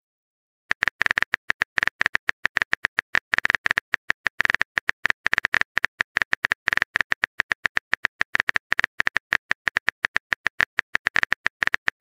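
Simulated phone keyboard typing sound: a rapid, even run of short, identical clicks, about eight a second, as a text message is typed out letter by letter. It starts about a second in.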